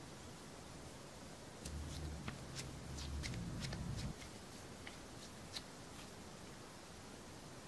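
Hands squeezing and handling soft modelling clay (Play-Doh): a scatter of faint sharp clicks and crackles, with a low rumble of handling for a couple of seconds in the middle.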